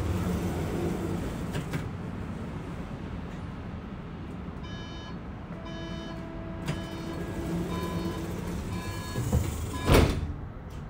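Inside a Bombardier Flexity low-floor tram: a steady low running rumble, with the electric drive giving off a whine in stepped tones between about five and nine seconds in. A loud knock sounds near the end.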